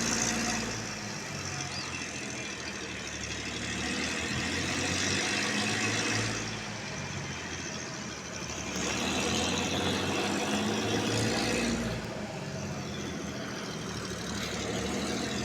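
An engine idling steadily, a little louder for a few seconds in the latter half.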